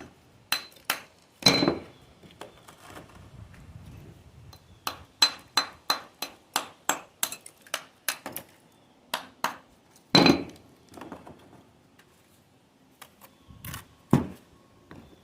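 A metal masonry tool strikes rough stone over and over: sharp taps, each with a brief metallic ring. They come irregularly, then in a quick run of two or three a second, with louder knocks about a second and a half in and about ten seconds in.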